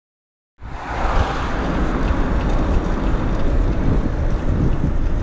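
Wind rushing over the camera microphone on a moving bicycle, with road rumble from riding along the street. It starts abruptly about half a second in and then runs steadily.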